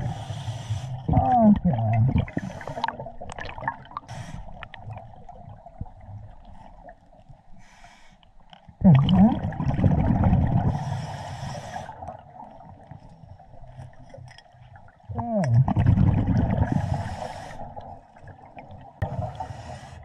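Scuba diver breathing through a regulator underwater: short hissing inhales and bursts of bubbling exhales, about three breaths.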